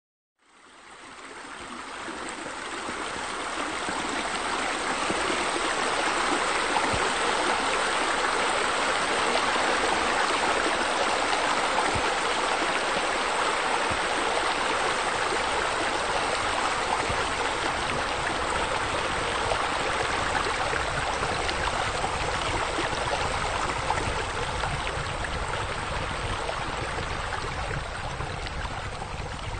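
Pool water features splashing: a steady rush of falling and flowing water that fades in over the first few seconds.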